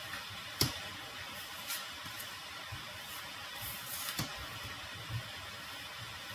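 Cards being handled and laid on a table during a card reading: a few short soft taps, the clearest about half a second in, over a faint steady hiss.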